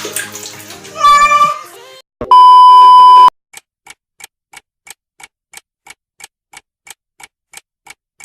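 A cat meows once, then a loud, steady electronic beep lasts about a second. Evenly spaced clock ticks follow, about two and a half a second, to the end.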